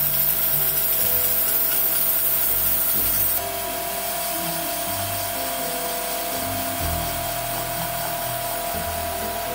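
Steady rubbing hiss of a power tool working metal, with a steady ringing tone, over background music; the hiss drops in level about three seconds in.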